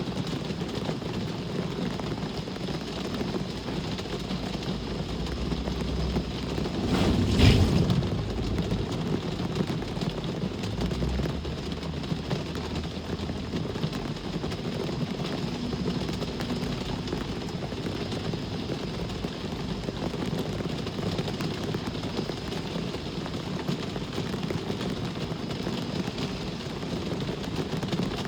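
Steady rain with traffic going by; one vehicle passes close, swelling to a sharp peak about seven seconds in and then fading, its low engine rumble trailing off over the next few seconds.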